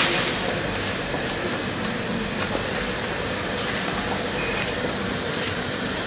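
Steady running noise of a rice-husk-fired steam boiler's machinery, an even hiss and rumble. Right at the start, a brief rush of rice husk pouring from a sack into the fuel feed hopper.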